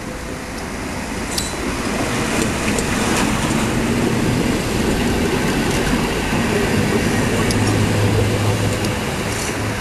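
A tram running on its rails, growing louder as it comes closer, with a low hum that strengthens in the second half and a few sharp clicks.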